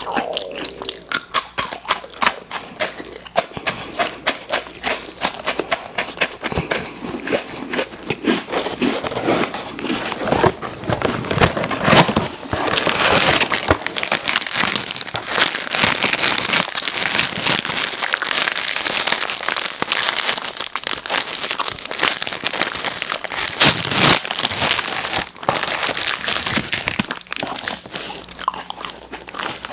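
Candy wrappers crinkling and crackling close to the microphone as sweets are unwrapped, densest and loudest through the middle stretch.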